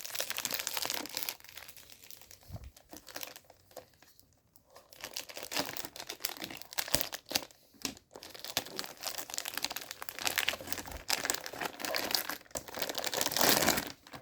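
Plastic packaging crinkling and tearing as it is pulled open by hand, in irregular handling bursts with a couple of short pauses and the loudest crinkling near the end.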